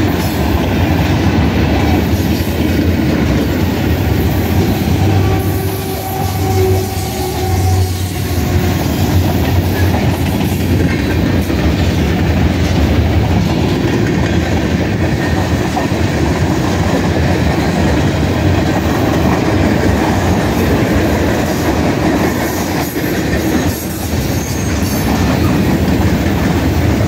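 Freight cars of a mixed freight train (tank cars, covered hoppers and boxcars) rolling past, with a steady rumble and clatter of steel wheels on the rails.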